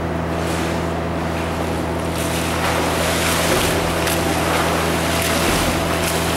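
Splashing of a swimmer kicking and stroking on his back through a backstroke drill in an indoor pool, growing louder about two seconds in, over a steady low hum.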